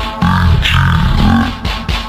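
Electronic background music with a heavy bass line and a short phrase that repeats about every two seconds.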